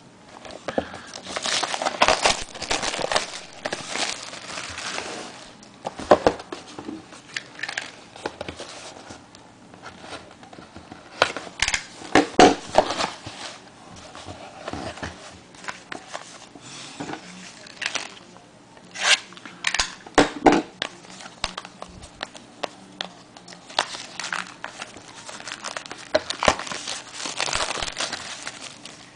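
Plastic shrink wrap on a sealed trading-card box crinkling and tearing as it is pulled off, in irregular crackles with a few louder rips.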